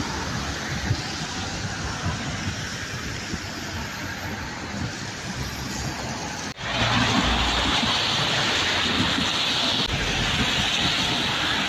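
Wind rushing over the microphone with road traffic passing; about two-thirds of the way in it cuts to a louder, rumblier stretch as a van drives by close alongside.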